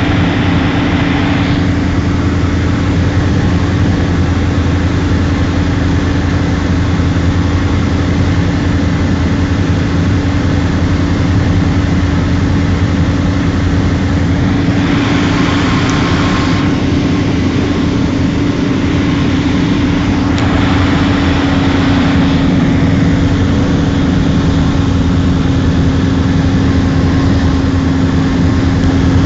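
Cessna 172's piston engine and propeller droning steadily, heard from inside the cabin while on approach to land. A brief rush of hiss comes in twice, about halfway through and again a few seconds later.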